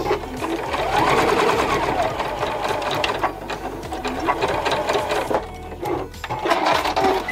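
Sewing machine stitching a short straight seam through folded denim twill at a fast, even stitch rate, with a brief let-up partway through.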